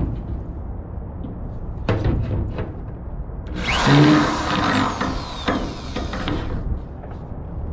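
Power drill boring a small pilot hole into a pickup truck's steel frame, running hard for about three seconds in the middle, over a steady low rumble.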